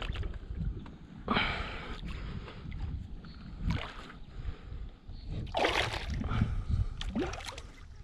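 Water sloshing and splashing around a fishing kayak as a hooked peacock bass is played close to the boat, with a few short louder splashes over a steady low rumble.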